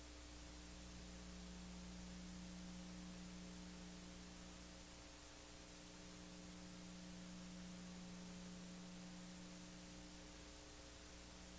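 Near silence: a steady low electrical hum with hiss from the recording chain, and no other sound.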